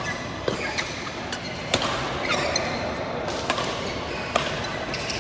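Badminton rally: rackets striking the shuttlecock in sharp cracks roughly a second apart, four loud ones, over the steady background noise of a large sports hall.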